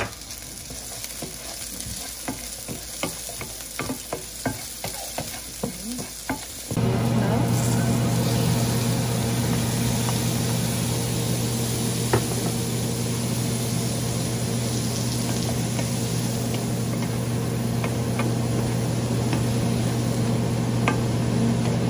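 Chopped onions and garlic sizzling in oil in a frying pan, stirred with a wooden spoon with small clicks. About seven seconds in, a steady low hum starts abruptly and stays louder than the frying, while mixed seafood goes into the pan and is stirred through.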